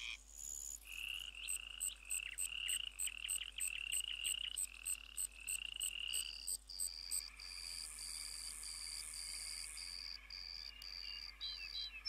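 Frogs calling: a rapid series of short repeated notes, about three a second, then a steady high-pitched call that pulses about twice a second.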